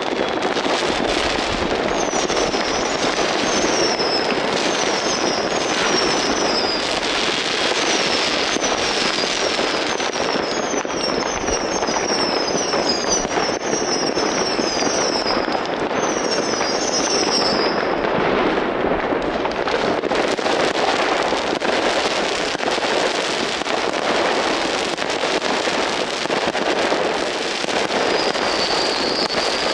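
New Year's Eve fireworks: a dense, continuous barrage of bangs and crackling from many rockets and firecrackers. Over it, short high whistles falling in pitch repeat one after another from about two seconds in to about eighteen seconds in, and come back near the end.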